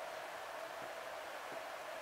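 Steady background hiss with a faint steady hum, and two faint soft knocks as the metal engine parts are handled.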